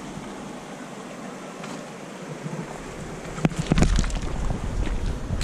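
Steady outdoor wind hiss. About three and a half seconds in, wind begins buffeting the microphone with a low rumble, along with several sharp clicks and knocks.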